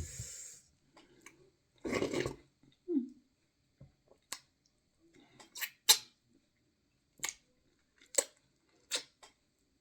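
Close-miked eating sounds of someone eating fufu: scattered sharp, wet mouth smacks and clicks, about six in the second half, with a breathy sound about two seconds in.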